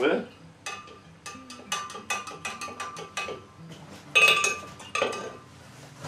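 Long plastic paddle knocking and clinking against the inside of a large glass jar as liquid is stirred: a quick run of light clinks with the glass ringing faintly, then two louder clatters near the end.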